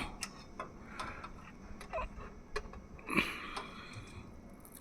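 Scattered light clicks and taps of hand work on bolts and switchgear hardware, with a short scraping burst a little after three seconds.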